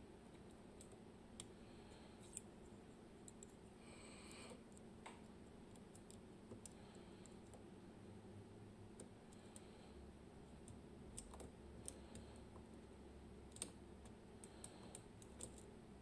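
Faint, scattered small metallic clicks and ticks of a lock pick working the pins and sliders in a Magnum Atlantic lock cylinder under tension, over a low steady hum.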